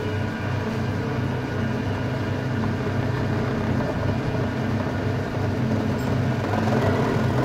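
Hydraulic oil press machine running, its electric motor and hydraulic pump giving a steady low hum with a noisy whir over it.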